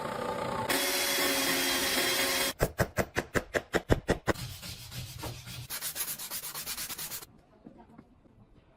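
Sanding or rubbing on wood. A steady scratchy run with a faint hum gives way about two and a half seconds in to a series of sharp back-and-forth strokes, about six a second, then quicker, lighter strokes that stop about seven seconds in.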